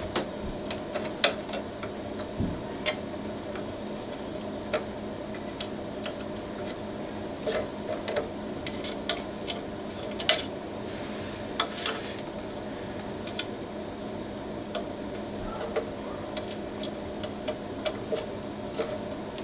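Irregular small metallic clicks and taps from a hand tool working the heatbed screws of a Prusa i3 MK3 as they are tightened down against their nylock nuts, over a steady low hum.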